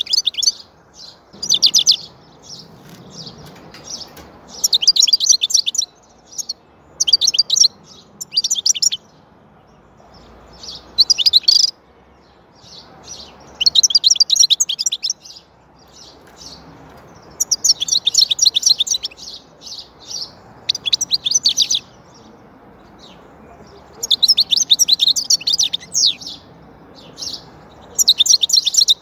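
European goldfinch singing: bursts of rapid, high twittering notes, each a second or two long, separated by short pauses.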